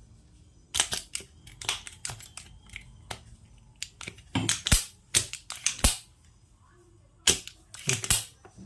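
A series of about nine sharp clicks and snaps, irregularly spaced, from small hand tools working on a circuit board.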